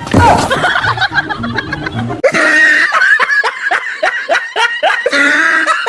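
Music, then from about two seconds in high-pitched laughing in quick repeated ha-ha notes, about four a second.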